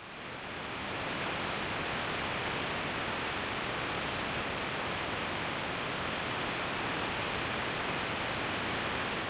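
Steady rushing wind noise, as of airflow over a camera in flight, with no distinct engine note. It fades in over the first second and fades out near the end.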